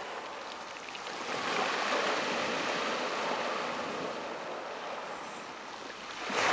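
Sea waves washing onto the shore: a steady rush of surf that swells about a second in, eases off, and rises sharply again as another wave breaks near the end.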